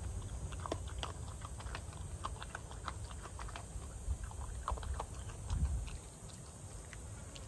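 Small animal eating dry kibble from a stainless steel bowl: an irregular run of small crunches and clicks, over a steady low rumble.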